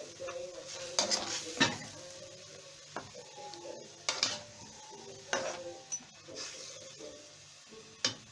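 A utensil knocking and scraping against a cooking pot as chicken is stirred into a simmering sauce, with several sharp clinks at irregular intervals.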